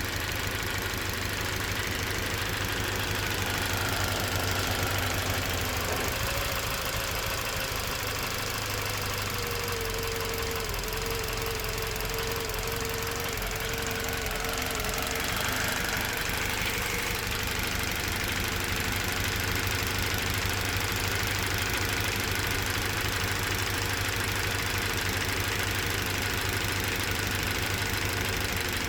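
Toyota Verso's 1.8 litre 2ZR-FAE Valvematic four-cylinder petrol engine running steadily. The owner reports that the engine shakes and cylinder 4 occasionally misfires, with compression, plugs, coils and injectors checked and the cause still unknown.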